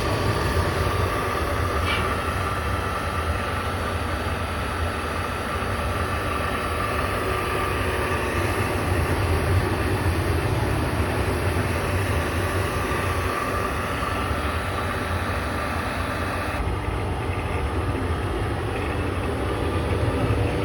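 Smokeless incinerator running under test: a steady low mechanical rumble with a faint, even high whine.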